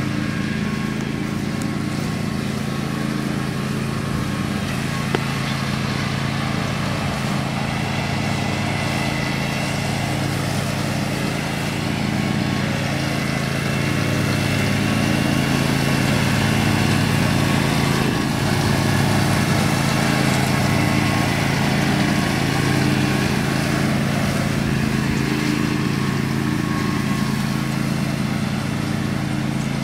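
Riding lawn mower engine running steadily at an even speed, growing a little louder about halfway through.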